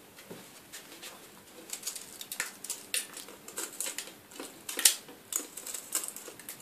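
Ice cubes being dropped into a plastic blender jar: a run of irregular clicks and clatters, the loudest about five seconds in.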